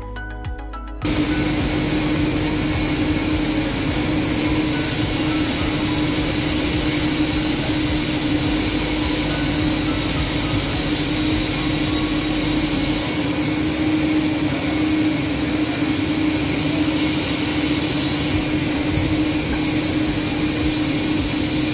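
Brief music cuts off about a second in, giving way to the steady whir of an industrial knit-fabric dyeing machine running while fabric is loaded into it, with a constant hum through it.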